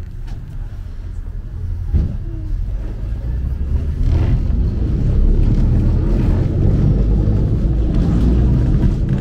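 A 97-year-old tram car rolling along its rails: a steady low rumble from its wheels and running gear that grows louder about four seconds in, with a single knock about two seconds in.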